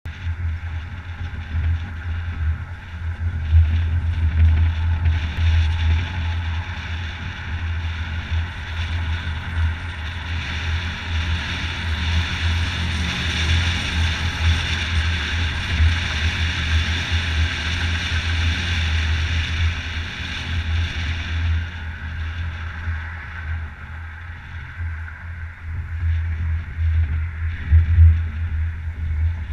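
Wind buffeting the microphone of a camera on a moving open vehicle, a low, fluttering rumble, with a hiss of tyre and road noise that swells in the middle and eases off near the end as the vehicle slows.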